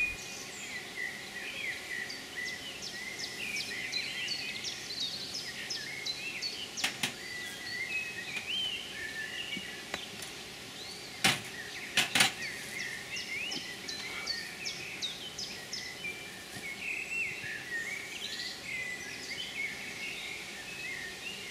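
Songbirds singing and chirping throughout, with short rising and falling calls. Three sharp knocks from wooden beehive parts being handled, once about a third of the way in and twice close together around the middle.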